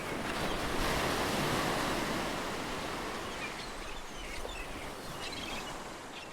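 Sea waves washing onto the shore: a swell of surf that builds over the first second or so and then slowly dies away.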